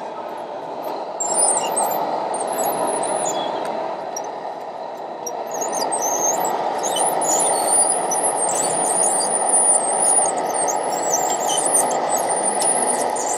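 A radio-controlled model crawler dozer grinds along and gives off repeated high-pitched, wavering squeals from its tracks and running gear as it crawls off the trailer. The squeals start about a second in and come and go, over a steady background hubbub.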